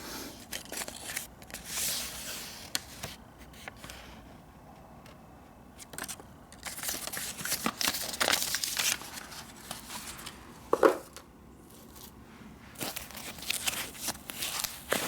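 Packaging unwrapped and handled by hand: irregular crinkling and tearing of wrapping, with a quieter stretch in between and one louder knock about eleven seconds in.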